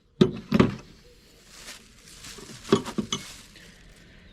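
Metal pliers being handled and set down: two sharp knocks near the start and a few clinks about two and a half seconds later, with light rubbing and rustling in between.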